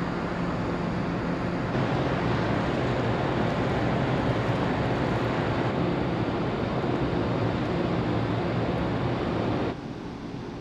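Steady low drone of the New Camellia ferry's engines with wind and water noise on the open deck. The sound drops suddenly to a quieter level near the end.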